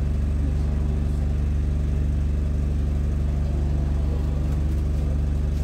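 Double-decker bus's engine idling while the bus stands still, a steady low hum and rumble heard from the upper deck.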